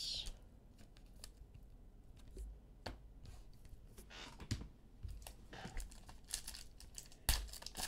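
Faint handling of trading cards, with scattered soft clicks and rustles, then the wrapper of a baseball card pack crinkling and tearing open near the end, the loudest sound.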